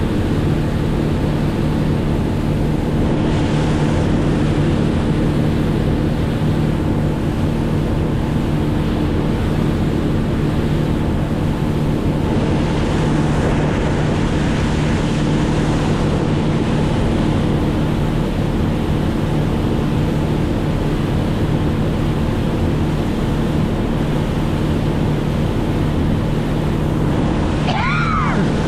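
Boat motor running at a steady, unchanging pitch, with water rushing past the hull and wind buffeting the microphone.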